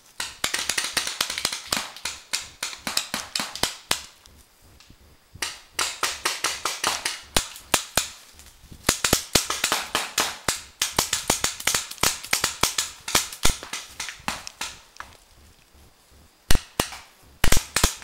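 Paintball markers firing in rapid strings of sharp pops, four runs of shots with short pauses between.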